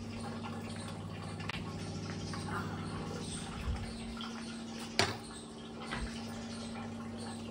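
A steady low hum in a kitchen, with light clatter as things are handled. One sharp knock about five seconds in is the loudest sound.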